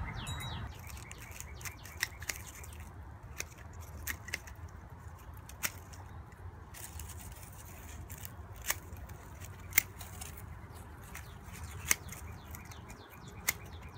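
Hand pruning shears snipping dry, dead geranium stems: about a dozen sharp, separate clicks at irregular intervals, a second or a few seconds apart.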